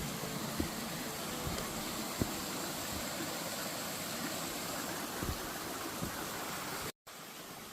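Rushing mountain creek water cascading over rocks, a steady hiss, with a few faint knocks. It cuts off abruptly near the end and returns quieter.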